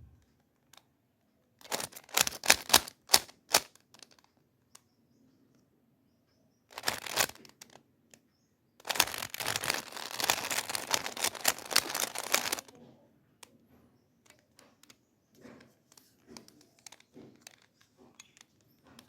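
Plastic Rubik's cube being handled and turned, its layers clicking in quick bursts, with a long run of rapid clicks about halfway through, then a few faint clicks.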